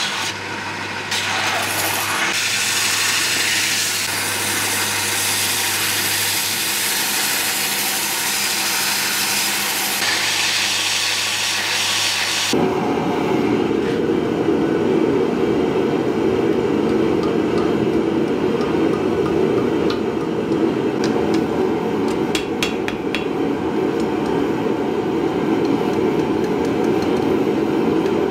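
A belt grinder running, grinding the steel knife blank with a steady hiss over the motor's hum; it cuts off about 12 seconds in. After that a steady low rushing noise, with light hammer taps on the red-hot blank at the anvil from about 20 seconds in as its tail is rolled into a curl.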